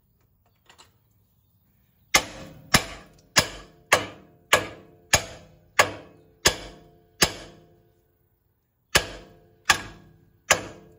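Hammer blows on the steel steering knuckle of a 2002 Ford Expedition, struck to shock the upper ball joint's tapered stud loose. Nine sharp metallic strikes about two-thirds of a second apart, each ringing briefly, then a short pause and three more.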